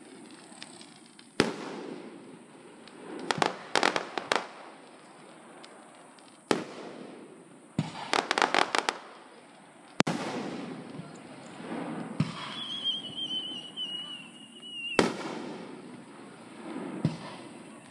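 Aerial fireworks shells bursting: about six sharp booms, each with a trailing rumble, and two runs of rapid crackling pops. Near the middle, a high whistle slides slightly down for about three seconds.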